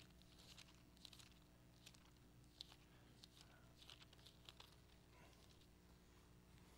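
Near silence: faint rustling and soft ticks of thin Bible pages being turned, over a steady low hum.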